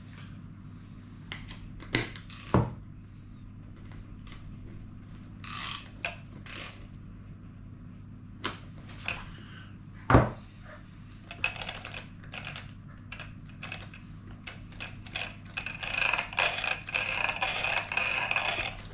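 A few sharp knocks and scrapes of parts being handled on the RC car, then from about 11 seconds in the pinion and spur gear turning with a rapid clicking rattle that grows busier near the end. The gear mesh sounds good.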